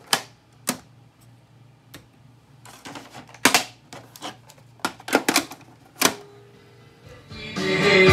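Sharp plastic clicks and knocks as tape cartridges are handled on a Fisher ER-8155 8-track and cassette deck: the cassette door pushed shut, 8-track cartridges picked up and set down, and a cartridge pushed into the 8-track slot with a clunk about six seconds in. Music from the 8-track starts playing near the end.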